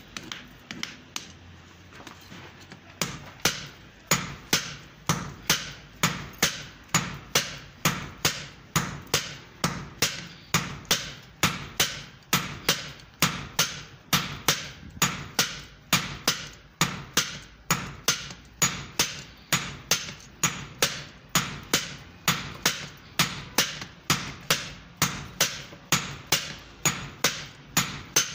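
Hand hammer striking red-hot steel on a small anvil, forging the axe head. A few scattered blows come first, then from about three seconds in a steady rhythm of about two blows a second.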